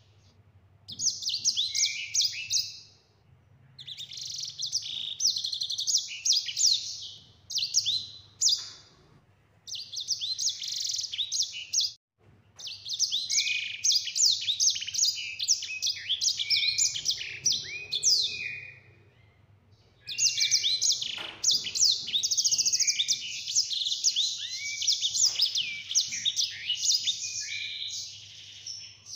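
Grey singing finch (the 'sanger') singing long, fast rolling phrases of high trills and slurred notes, in five bursts broken by short pauses.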